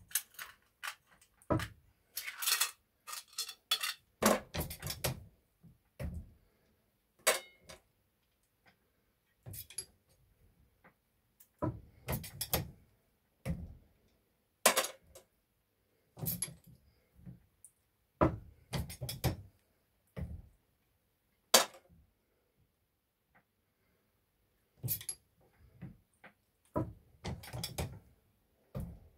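Hand-operated Corbin swage press being worked through a swaging cycle for .22 lead slugs: irregular metal clicks, clinks and knocks in short clusters every second or two, as the handle and ram are moved and die parts, lead cores and slugs are handled.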